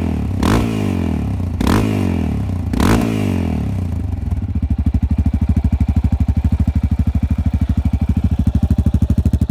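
Yamaha XT660Z Ténéré single-cylinder engine through twin Barrett exhausts, blipped three times about a second apart. From about four seconds in it settles into a steady, evenly pulsing idle.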